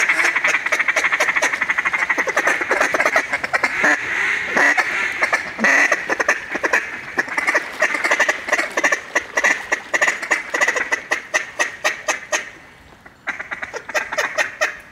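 Mallard duck calls blown by hunters in a long, fast run of quacks that tapers off in loudness, stops about twelve seconds in, then starts again briefly near the end.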